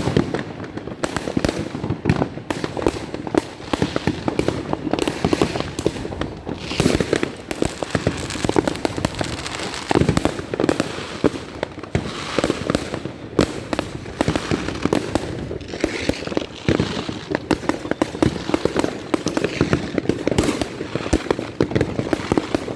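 Many fireworks going off at once in a dense, continuous barrage of overlapping bangs and crackles, with a few louder reports standing out.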